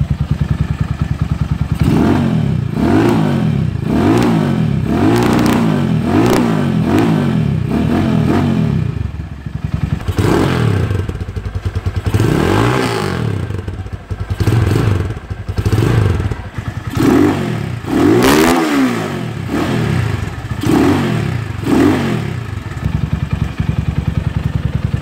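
Rusi SS250 motorcycle engine running through an Akrapovic full-system exhaust with one dB killer removed, idling and then revved in about a dozen quick throttle blips before settling back to idle near the end.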